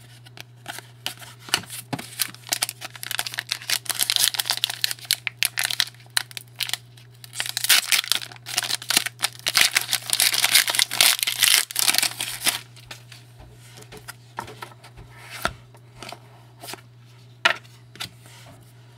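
Foil wrapper of a trading-card pack being torn open and crinkled for about eight seconds, with scattered clicks and snaps of cards being handled before and after.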